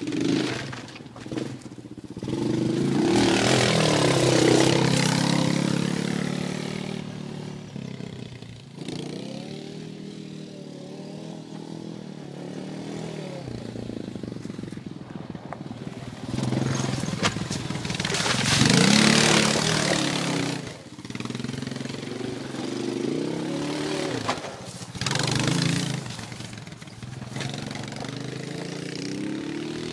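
Honda Recon ATV's single-cylinder engine revving up and down over and over as it is driven in sliding turns. It is loudest twice, about 4 and 19 seconds in, when a rushing hiss of tyres sliding joins the engine.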